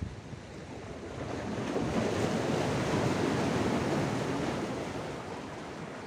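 A sea wave surging in against the rocks: a rushing wash that builds about a second in, is loudest around the middle and dies away near the end.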